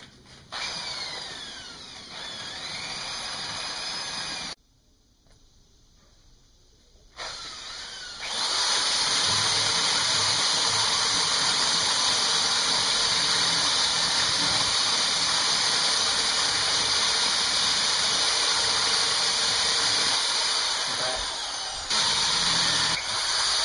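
Handheld power tool grinding into a rock to carve it: the motor winds up with a rising whine, stops for a few seconds, then runs steadily while cutting the stone, with a brief break near the end.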